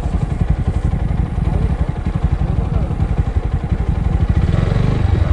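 Motorcycle engine idling with a steady low pulsing.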